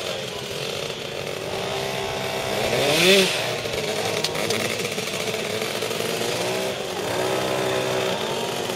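Piaggio Ciao moped's small two-stroke engine running as it is ridden past, with a buzzing note. About three seconds in it revs up with a quickly rising pitch, the loudest moment, then runs on steadily, changing pitch again near the end.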